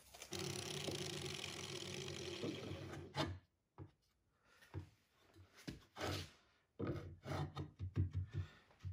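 The end of a hickory axe handle being worked down with a steady scrape for about three seconds. Then, after a brief pause, a steel double-bit axe head is pushed on and worked back and forth over the handle's end in a run of short wood-on-metal scraping strokes, testing the fit.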